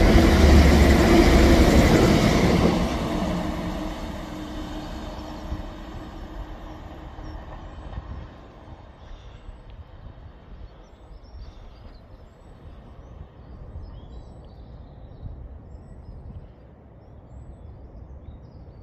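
Class 185 diesel multiple unit passing through at line speed without stopping: loud engine hum and wheel-on-rail rumble for the first few seconds, then fading away as it recedes.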